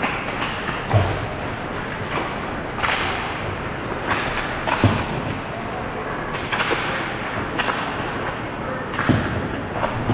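Ice hockey play: steady rink noise of skates scraping and sticks clattering, broken by heavy thuds of players and the puck against the boards about a second in, near the middle and near the end.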